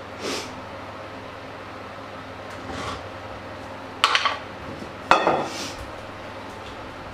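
Metal kitchen utensils handled on a wooden cutting board: two soft brushes of sound, then two sharp clattering knocks about four and five seconds in, as a kitchen knife is set down among metal skewers.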